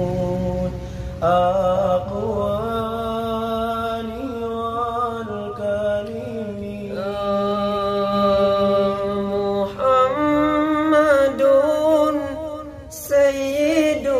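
Young male voices singing an Islamic sholawat in long, ornamented held notes, the melody bending and sliding between pitches, with a short break for breath near the end.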